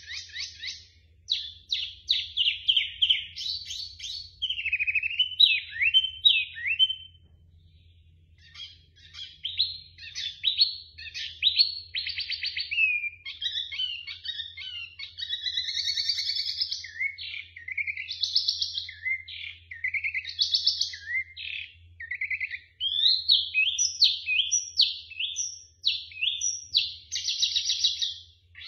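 A caged wambi mini singing loudly in quick, varied phrases of chirps and slurred whistles, its song filled with mimicked kutilang (sooty-headed bulbul) calls. The song breaks off briefly about seven seconds in, and a faint low hum runs underneath.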